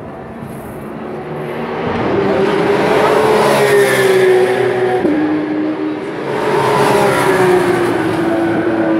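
TCR touring cars' turbocharged four-cylinder engines accelerating past at race speed. The engine note rises, drops suddenly at a gear change about five seconds in, then swells again, loudest around four and seven seconds in.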